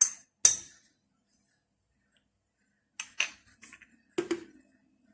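Metal cutlery clinking against dishes in short, sharp strikes: two at the start, a few more about three seconds in, then a heavier knock with a short ring just after four seconds.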